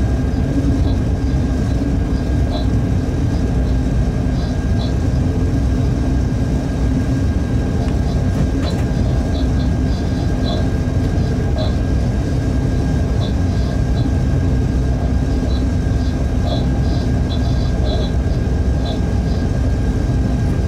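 Freight train running at speed heard from the locomotive cab: a steady low rumble of wheels and running gear on the rails, with a constant hum and faint short high chirps scattered throughout.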